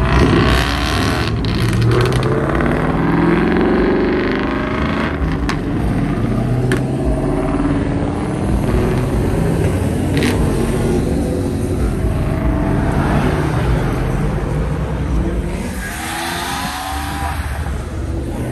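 Performance car engines revving and accelerating away, their pitch rising and falling, with another surge of acceleration near the end.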